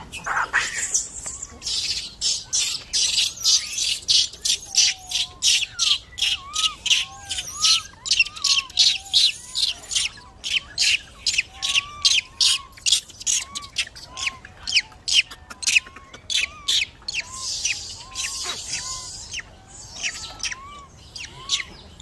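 Birds calling: a fast series of sharp, high chirps, about three a second, over softer short whistles that rise and fall.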